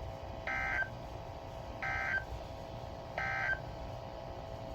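Emergency Alert System end-of-message signal on NOAA Weather Radio: three short, identical bursts of warbling SAME data tones, about a second and a half apart, marking the end of the alert.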